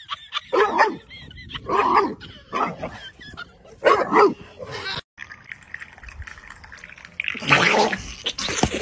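A dog barking in a string of short barks over the first five seconds. A louder, longer burst of a different sound starts near the end.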